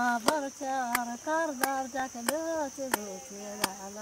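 A voice singing a slow melody in long, bending notes over a sharp click about every two-thirds of a second, with a steady high buzz behind it.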